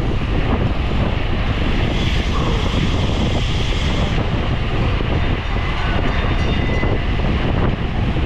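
Wind noise on the microphone of a racing bicycle moving at speed: a loud, steady rush with a heavy low rumble.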